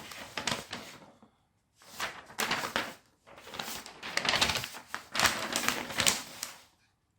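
Kit parts and their plastic packaging being handled: rapid bursts of clicking, crinkling and clattering that come in three spells and stop about a second before the end.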